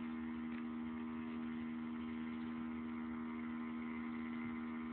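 Small 12 V solar-powered pump running with a steady, even hum as it pumps yard runoff out of the bucket through a hose.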